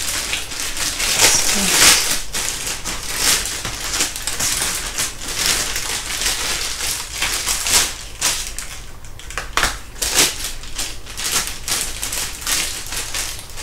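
Clear plastic zip-lock bag crinkling in gloved hands as it is opened and handled, in irregular rustles.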